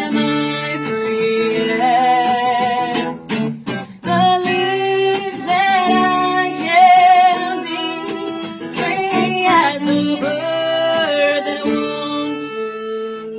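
Live acoustic music: an acoustic guitar playing chords under a held, wavering melody line, easing off near the end.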